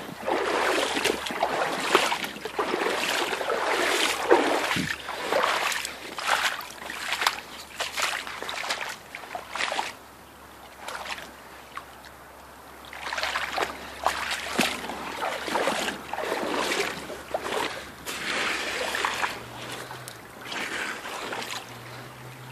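Creek water splashing and sloshing in irregular strokes, with a quieter lull about ten seconds in before the splashing picks up again.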